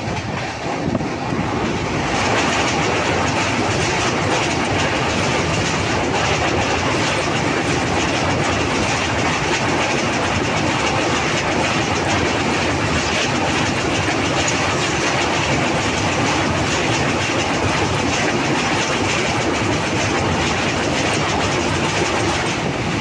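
Train wheels running across a steel truss bridge, heard from inside the train: a loud, steady rumble and rattle that swells about two seconds in as the train comes onto the bridge spans.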